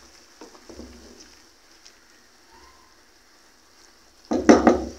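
Chicken pieces boiling in water in a metal pot with a faint steady bubbling hiss; about four and a half seconds in, a spoon stirs the pot with a short run of loud knocks and scrapes against the metal.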